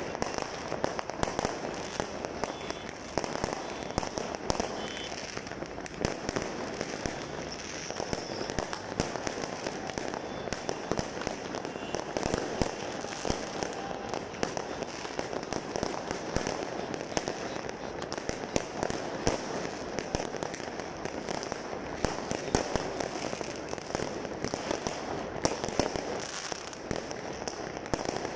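Fireworks going off all over the city at once: a continuous crackle of overlapping pops and bangs, with many louder cracks standing out throughout.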